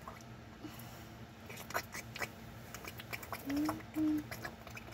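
Light clicks of plastic Lego pieces being handled, then two short low hummed notes from a person's voice about three and a half seconds in, over a faint steady hum.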